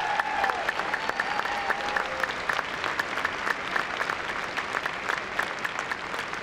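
Arena crowd applauding: a dense, steady patter of many hands clapping.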